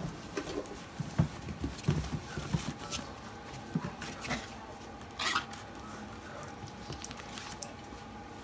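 Puppies, nearly six weeks old, scampering and tussling on wood-chip bedding: an irregular patter of paws with soft thumps, busiest in the first few seconds, and a short louder scuffle about five seconds in.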